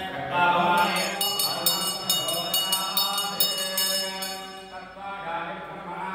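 Male priests chanting Sanskrit mantras in unison. From about a second in until past the middle, a rapid high ringing runs under the chant at about five strikes a second.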